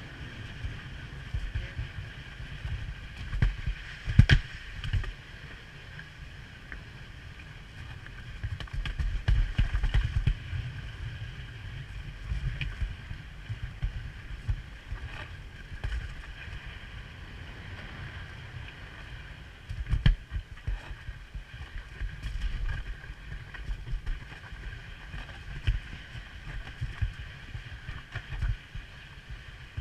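Monte wicker toboggan's wooden runners sliding down the road surface: a continuous scraping rumble with frequent irregular jolts and knocks over bumps, the sharpest about four seconds in, with wind buffeting the microphone.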